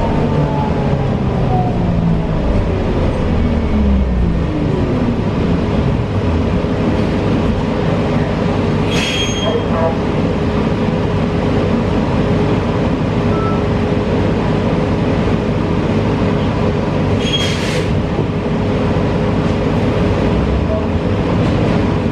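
Inside a battery-electric 2022 New Flyer XE40 bus with a Siemens ELFA2 drive: steady road and cabin noise under a constant hum. The electric drive's whine falls in pitch over the first few seconds as the bus slows. Two brief high-pitched sounds come about eight seconds apart.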